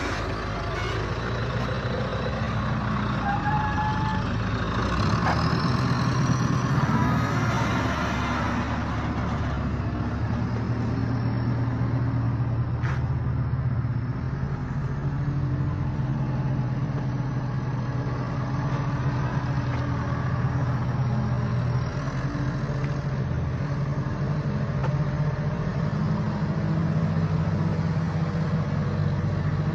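A heavy vehicle's engine running steadily amid street traffic noise, with a single sharp click about thirteen seconds in.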